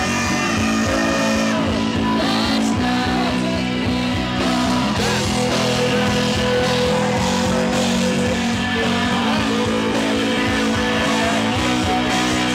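Rock music with electric guitar and singing.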